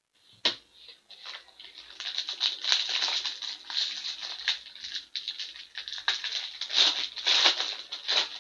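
Foil wrapper of a 2018-19 SP Game Used hockey card pack being torn open and crinkled by hand: a sharp crack about half a second in, then dense, irregular crinkling and crackling.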